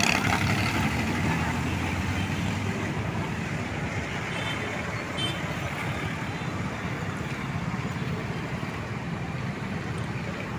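Road traffic noise: a vehicle that passed close fades away over the first couple of seconds, leaving a steady rumble of traffic.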